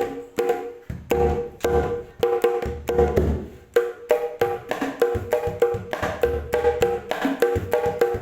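Sundanese kendang jaipong hand drums played in a fast, busy rhythm: quick ringing high strokes on the small drum heads over deep low strokes on the large drum, which come about once a second.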